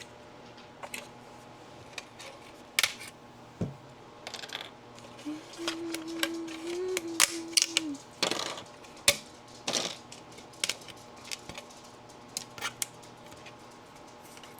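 Irregular sharp plastic clicks and snaps as support material is pried and broken off 3D-printed plastic parts by hand and pliers. A short steady hum-like tone is held for a few seconds in the middle.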